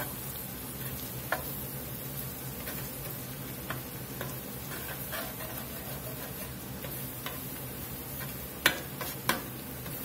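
Metal spatula stirring a flour-and-butter roux in a cast-iron skillet: scattered clicks and scrapes of the blade against the pan over a low, steady sizzle. The sharpest knocks come near the end.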